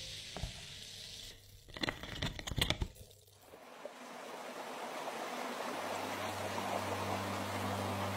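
A few light clicks and knocks, then a rushing water noise that swells steadily louder, with a low steady tone underneath in the second half.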